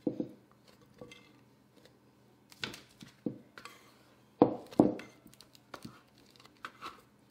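Sticky gingerbread dough being scraped and pulled out of a glass mixing bowl by hand, with scattered light knocks and clinks of the glass bowl; the loudest are two knocks a little after halfway.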